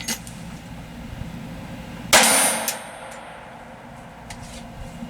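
One shot from a Taurus TX22 .22 LR pistol about two seconds in, with a metallic clang and ringing from a steel target dying away over about half a second. A faint click comes just before.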